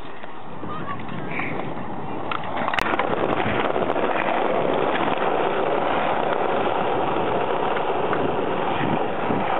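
Skateboard wheels rolling over street paving: a steady rolling noise that gets louder after a sharp click about three seconds in.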